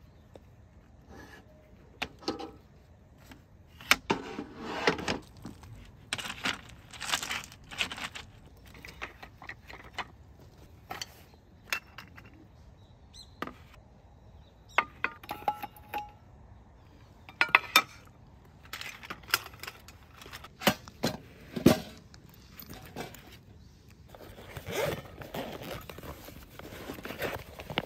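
Camping gear being handled: irregular metal clinks and sharp knocks with bursts of rustling.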